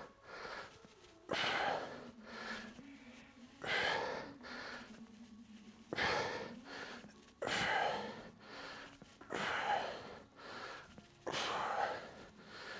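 A man breathing hard: quick, sharp gasping breaths in and out, roughly one a second, as from physical exertion.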